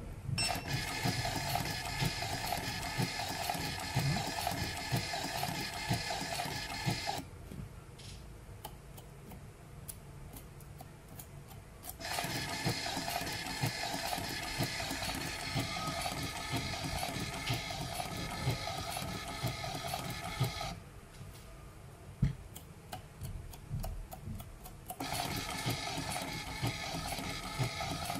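FUMA ZCUT-10 automatic rotary-disc tape cutter running, its motor whining steadily with fine mechanical ticking as it feeds and cuts tape pieces onto its disc. It runs in three stretches of about seven to eight seconds, with quieter pauses of about four to five seconds between them.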